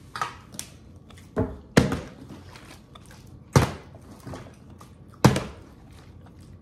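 Plastic water bottle being flipped and landing on a kitchen countertop: about five dull thunks at uneven intervals.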